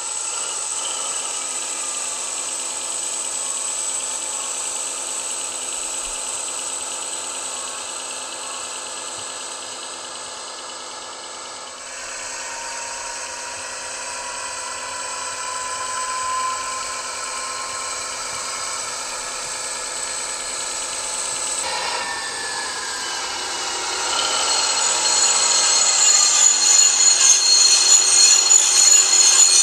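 ESU H0 model BR 216 diesel locomotive running, with its LokSound decoder playing a recorded 216 diesel engine sound through the model's loudspeaker. The engine sound rises and falls in pitch several times and grows louder and more rattling over the last few seconds.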